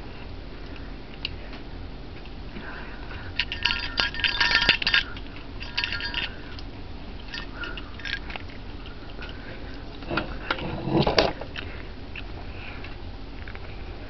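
A china plate clinking and rattling on a countertop as a kitten eats from it. There are short ringing clinks about four and six seconds in, and a longer rattle that peaks about eleven seconds in.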